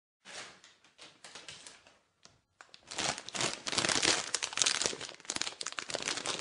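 Irregular crinkling and crackling, faint at first and louder from about three seconds in.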